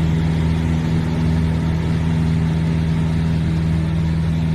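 Piper Cherokee's single piston engine and propeller at full takeoff power during lift-off and climb-out, a loud, steady drone heard from inside the cockpit.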